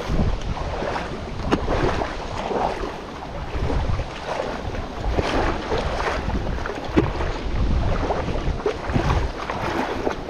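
Wind buffeting the microphone with a steady low rumble, over moving river water with irregular splashes.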